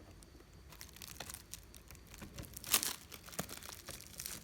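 Handling noises as clamp-clip leads are fastened to a power filter's terminals: scattered small clicks and rustling, with a sharper click a little past the middle.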